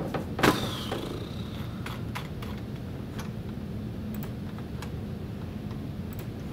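Typing on a computer keyboard: scattered, irregular key clicks over a steady low hum. A louder knock sounds about half a second in.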